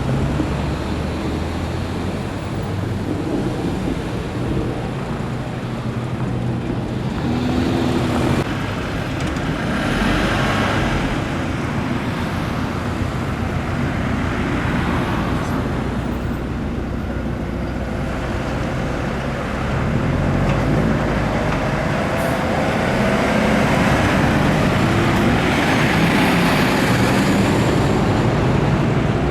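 Road traffic with large trucks and cars driving past one after another, engine hum and tyre noise swelling and fading with each pass. The loudest stretch comes in the last third.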